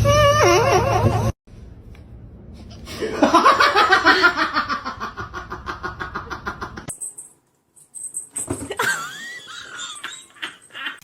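A person laughing hard in a rapid run of ha-ha pulses that trails off, with short, unrelated clip sounds before and after it.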